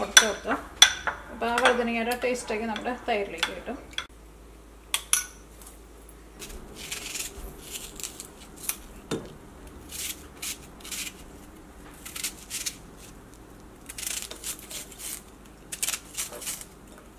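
A metal spoon stirring and clinking in a ceramic bowl. After a short pause comes a knife slicing small red onions (shallots) held in the hand, heard as clusters of short, sharp cuts.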